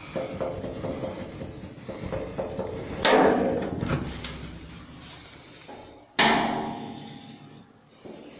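Two loud bangs about three seconds apart, each struck sharply and ringing out for about a second.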